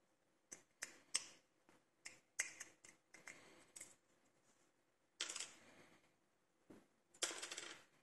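Small sharp clicks and a couple of short scraping rasps as a picked Miwa U9 lever lock and its tools are handled, with a rasp about five seconds in and another near the end.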